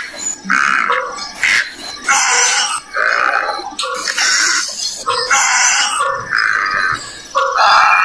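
A run of harsh, rasping animal calls, repeated about once a second, each short and loud.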